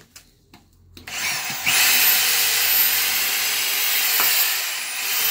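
DeWalt D25133K SDS hammer drill, fitted with a keyless chuck, starting up a little over a second in and drilling into a block of timber. Its motor whine holds steady, then sags briefly under load near the end before picking up again.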